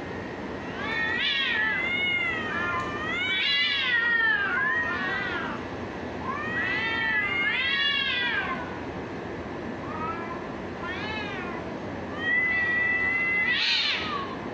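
Domestic cats yowling at each other in long, wavering, drawn-out howls that rise and fall in pitch, in four bouts, the last climbing higher near the end: the threat yowling of a face-off between two cats before a fight.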